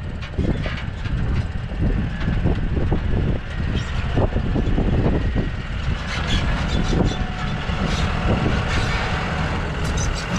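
Claas tractor engine running as it tows a steel dump trailer past close by over rough stony ground, with a heavy low rumble and frequent clanks and rattles from the trailer and stones under the tyres. A faint whine comes in about six seconds in as the tractor draws level.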